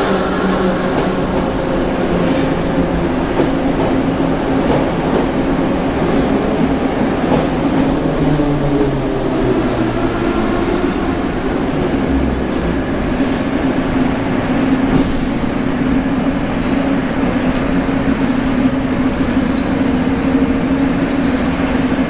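Moscow metro train of 81-717 series cars pulling into the station and braking, its traction motor whine falling in pitch over the rumble of the wheels until it stops about ten seconds in. Then a steady hum from the standing train.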